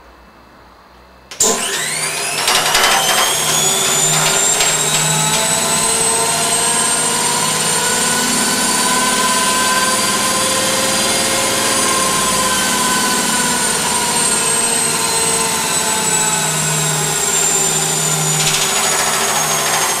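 Stripped-down washing machine's motor and drum starting up suddenly about a second and a half in and spinning up fast. It makes a loud whine whose pitch climbs quickly and then holds nearly steady.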